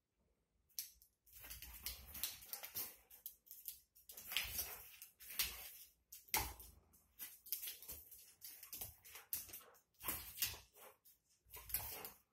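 A dog's paws and claws scrabbling and skittering on a smooth hard floor as it dashes after a laser dot, in quick irregular bursts with short pauses between them.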